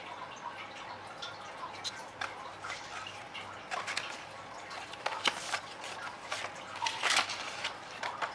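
Paper and card inserts from a phone box rustling and crackling as they are handled, in irregular small clicks, with louder crinkles about five seconds in and around seven seconds in.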